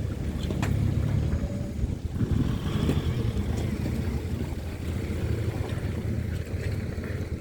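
Four-wheel-drive engine running at low revs as the vehicle wades through a river crossing, with water washing around it.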